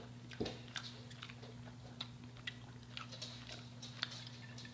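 Close-up chewing and biting of crispy fried chicken: small, irregular crunches and mouth clicks over a low steady hum.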